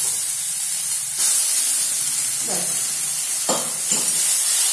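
Onions sizzling in hot oil in a steel kadai, growing louder about a second in as ginger-garlic-onion paste goes into the pan. Three short scraping strokes of a spoon come near the end.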